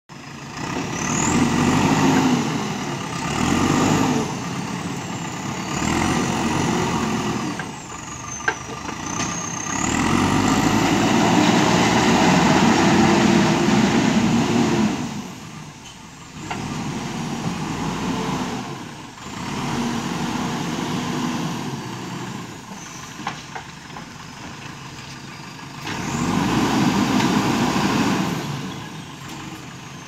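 JCB 3DX backhoe loader's diesel engine revving up and dropping back again and again as it works the hydraulic backhoe arm, with its longest rise, about five seconds, near the middle.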